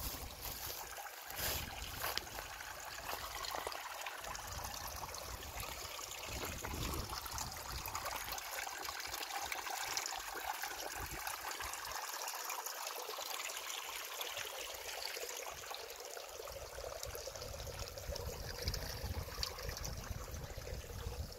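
Shallow water trickling among the rocks of a river shrunk low by drought, a steady hiss. Wind rumbles on the microphone at times, least in the middle.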